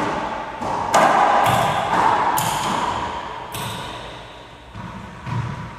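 Racquetball rally: the ball cracking sharply off racquets and the court walls, about four hard hits in the first four seconds, each ringing out in the court's echo. Softer low thuds follow near the end.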